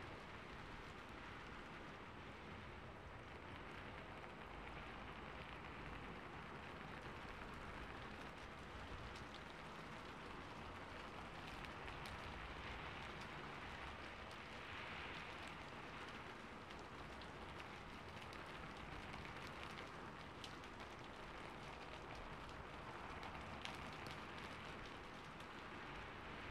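Steady rain falling, with occasional sharper drop ticks.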